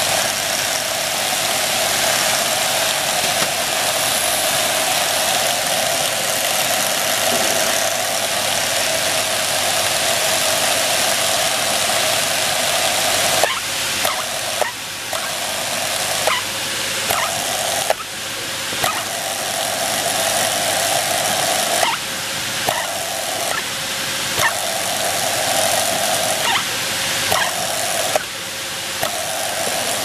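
Bench drill press running steadily while small zinc alloy handle parts are drilled one after another. From about halfway on, its steady sound breaks every second or two, with a sharp metallic click at many of the breaks as each part is worked and changed.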